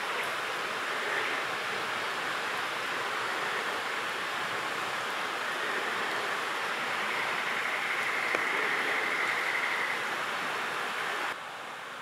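Steady rush of running water, an even hiss. A faint high steady tone sounds over it through the middle, and the water noise drops abruptly to a quieter hiss just before the end.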